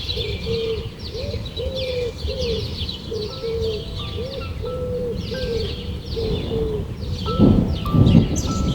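Birds calling: a rapid series of short, low arched notes about two to three a second, high chirps and a few thin whistles, over a steady low background noise. About three-quarters of the way through, louder low surges join in.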